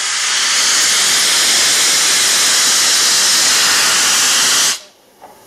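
LNER K4 steam locomotive's safety valves blowing off: a loud, steady hiss of escaping steam that cuts off suddenly near the end.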